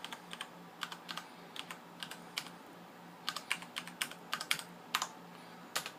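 Typing on a computer keyboard: quick, irregular key clicks in short runs, with a pause of under a second near the middle and another near the end.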